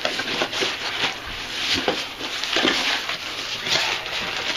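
Packaging rustling and crinkling as a shipped box is opened and its contents unwrapped, with scattered small clicks and crackles.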